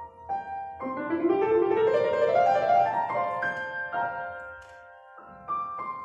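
Grand piano played solo: a few struck chords, then about a second in a fast run of notes climbs up the keyboard to the loudest point, followed by held chords that die away before new chords are struck near the end.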